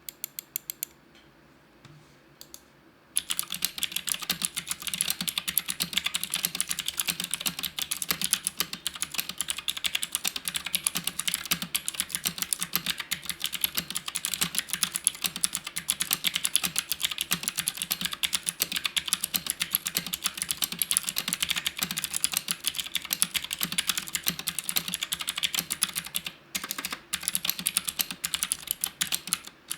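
Typing on an Akko Neon 3061 60% mechanical keyboard with PBT keycaps. A few separate key presses come first, then fast continuous key clicks from about three seconds in, with a couple of brief pauses near the end.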